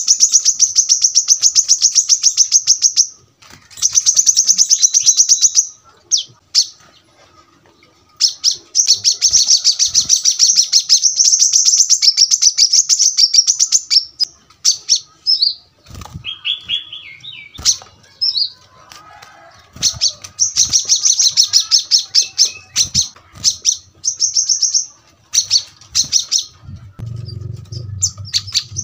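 Brown-throated sunbird (kolibri kelapa) singing in long, very fast, high-pitched rapid-fire trills, broken by short pauses, with a few slower, lower notes near the middle.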